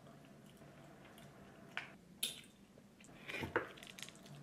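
Quiet room tone with a few faint, short taps and clicks, a small one about two seconds in and a little cluster near the end.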